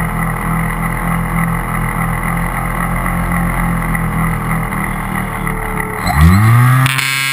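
Cessna 182 piston engine and propeller droning steadily, with air rushing past the camera. About six seconds in, a loud buzz sweeps sharply up in pitch and settles into a steady drone: the GoPro resonating against its mount on the airframe.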